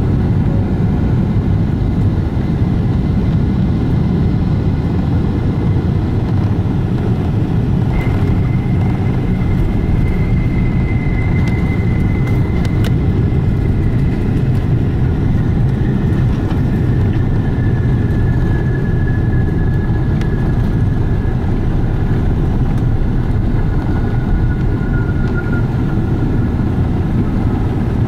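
Boeing 777-300ER landing heard from the cabin: a steady low rumble of GE90 engines and airflow, with a short thud about eight seconds in as it touches down. After that comes the rollout, with spoilers up, and a thin whine that slowly falls in pitch as the aircraft slows.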